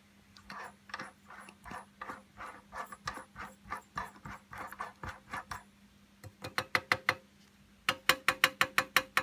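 Mechanical oiler of a model steam engine clicking as it is worked, about three clicks a second at first, then two faster and louder runs of clicks near the end. A steady low hum sits under it.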